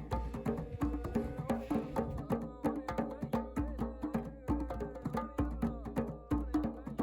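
Music with a fast, dense percussion rhythm of sharp clicking strokes over sustained pitched notes.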